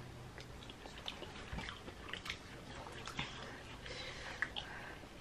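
People chewing and eating food close to the microphone: soft wet mouth smacks and small scattered clicks.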